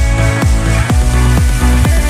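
Background electronic dance music with a steady kick drum, about two beats a second.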